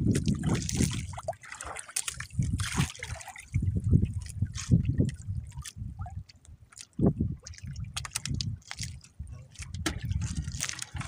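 Water sloshing and splashing in irregular bursts, with scattered small knocks and clicks.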